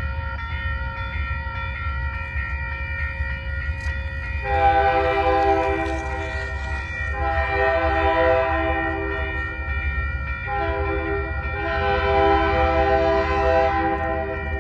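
Diesel locomotive's air horn sounding three long, loud blasts of several notes at once for the grade crossing, over the steady ringing of the crossing-signal bell and a low rumble.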